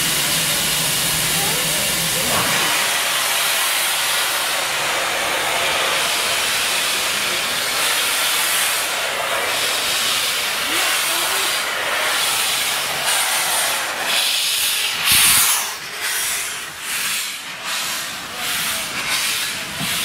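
Small steam locomotive hissing steam, with white jets blowing sideways from its open cylinder drain cocks, as it gets under way. From about eight seconds in come exhaust chuffs, about one a second at first and quickening toward the end, the loudest about fifteen seconds in.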